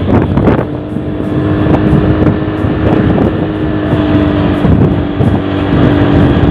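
Vehicle running steadily along a street while the recording moves with it: a constant engine hum under a rushing traffic and wind noise on the microphone.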